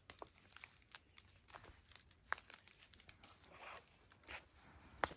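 Faint crackling and tearing of fibrous adda vine as its outer bark is stripped and the strands are pulled apart by hand, with scattered small clicks and a sharper snap near the end.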